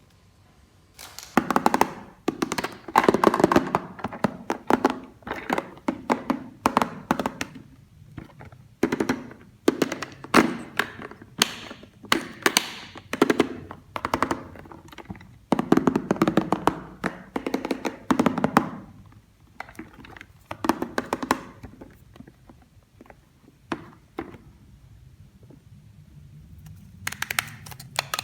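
Plastic toy pieces being handled, knocked together and set down: repeated clattering taps and thunks in bunches, starting about a second in and easing off for a few seconds near the end.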